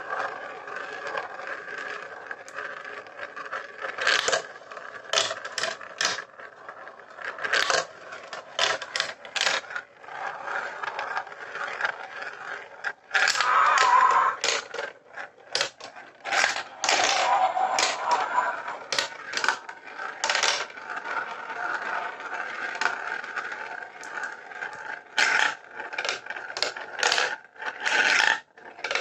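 Glass marbles rolling down plastic marble-run track, with frequent sharp clicks and clatters as they drop and knock through the pieces. There are louder rattling stretches about 13 and 17 seconds in.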